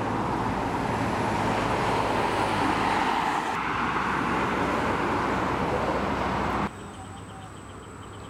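Road traffic on a multi-lane highway: a steady rush of tyre and engine noise from passing cars, swelling slightly as a car goes by. A little under seven seconds in it cuts off suddenly to much quieter outdoor ambience with a thin steady high whine and faint chirping.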